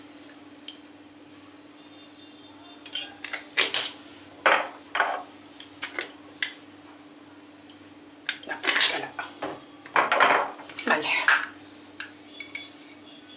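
Glass spice jars and their lids being handled: short bursts of clicks, clinks and knocks as jars are opened, shaken over a bowl and set down on a stone countertop. A faint steady hum runs underneath.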